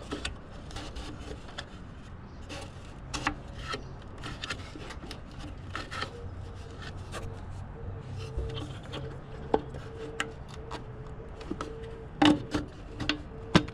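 Hands working a rubber headlight boot and the plastic parts behind a headlight: irregular rubbing and scraping with scattered sharp clicks, the loudest clicks near the end.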